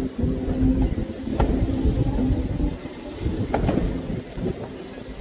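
Aerial fireworks bursting: a continuous low rumble of booms, with two sharper cracks about a second and a half in and near four seconds in.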